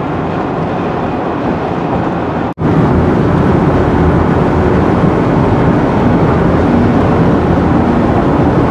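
Steady road noise inside a car travelling at highway speed. It breaks off for an instant about two and a half seconds in, then resumes a little louder.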